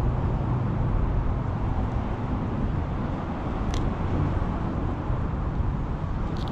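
Steady low rumble of road traffic on the bridge overhead.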